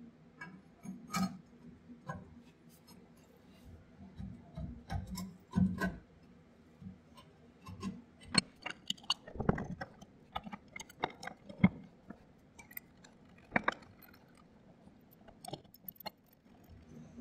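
Hand ratchet clicking in short irregular runs as nuts are run down on the rear axle's U-bolts, with metal clinks of the tool against the parts, over a faint steady low hum.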